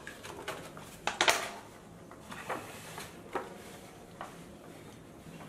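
A brown paper gift bag crinkling and rustling as a hand handles it and rummages inside, in a few short crackles, the loudest about a second in.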